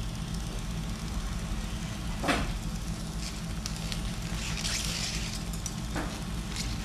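Steady low hum of operating-room equipment during arthroscopic shoulder surgery, with a sharp click a little over two seconds in, a brief hiss past the middle and another faint click near the end.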